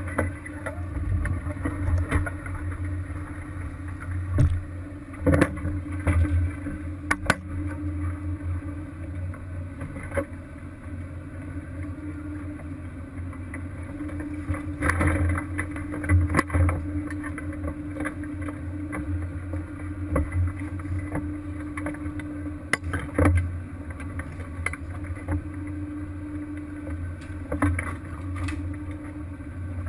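Crab fishing boat's engine and deck machinery running with a steady low hum and a steady higher tone, with several sharp knocks and clanks scattered throughout.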